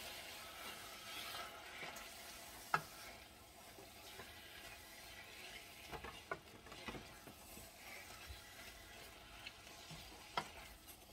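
Wooden spoon stirring browning meat in a stainless steel saucepan on the stove, with faint sizzling and a few sharp knocks of the spoon against the pan, the loudest about three seconds in and a cluster around the middle.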